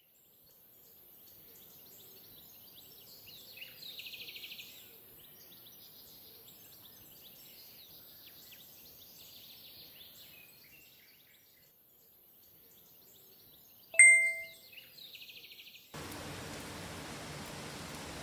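Small birds chirping and trilling, with one bright chime ringing out about fourteen seconds in, the loudest sound. About two seconds before the end it cuts abruptly to a steady hiss of rain.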